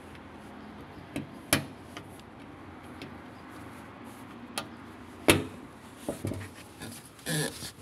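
Sharp plastic clicks and knocks as white plastic caps are pressed into the transit-bolt holes in a washing machine's sheet-metal back panel. There are several separate clicks: the loudest about a second and a half in and just past five seconds, then a short rustle near the end.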